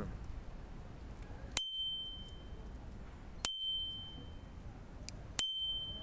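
Dome bicycle bell with a thumb-lever striker rung three times, about two seconds apart: each a sharp ding that rings on one bright tone and fades within about half a second.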